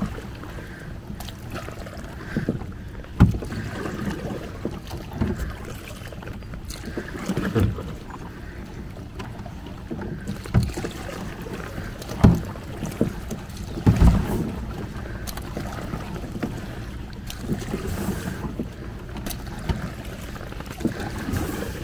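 A small folding boat being paddled on calm water, with paddle splashes and irregular knocks against the boat. The strongest knocks come about 3, 12 and 14 seconds in.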